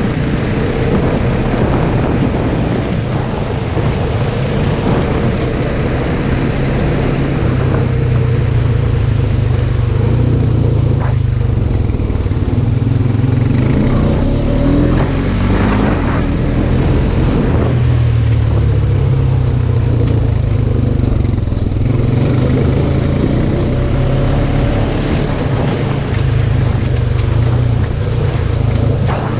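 Off-road side-by-side UTV engine running steadily, its pitch rising and falling with the throttle a few times.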